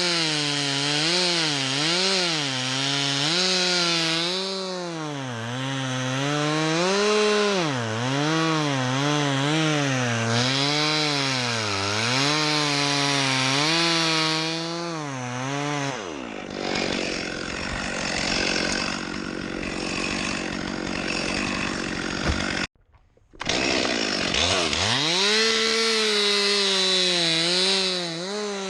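Chainsaw cutting dead birch wood, its engine note rising and falling over and over as the chain bites. About halfway through the steady note gives way to several seconds of rougher noise; the sound cuts out briefly, then the saw runs up and wavers again.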